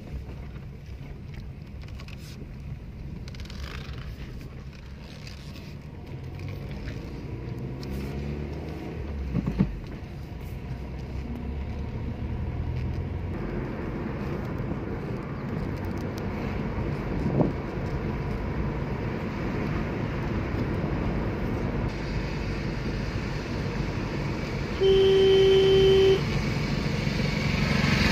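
Car driving on a paved country road, heard from inside the cabin: steady engine and tyre rumble, with one car horn toot of about a second near the end.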